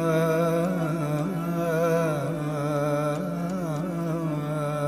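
Background music in an Indian classical style: a slow, ornamented melody line bending in pitch over a steady drone.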